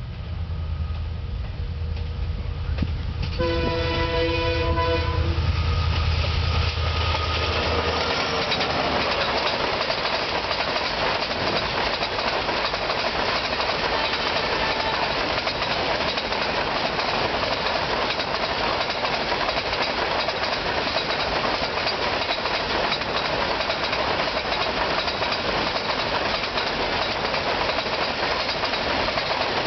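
WDG4 diesel locomotive (EMD GT46MAC, two-stroke V16) running as it approaches, sounding its multi-tone horn for about two seconds a few seconds in. From about eight seconds in, a long rake of empty BCNA covered wagons rolls past with steady rail noise and clickety-clack.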